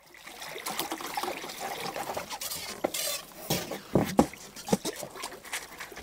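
Swimming-pool water splashing and lapping as people move about in it, with a cluster of sharp slaps and knocks around four seconds in.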